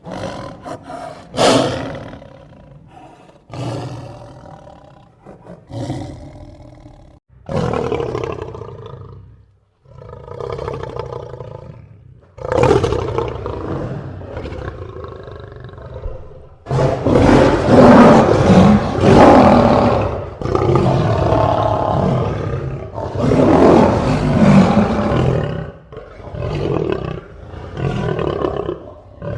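African lions roaring in a run of separate calls a second or few long with short pauses between them. About halfway through the roaring gets louder and runs almost without a break for several seconds, then goes back to shorter calls near the end.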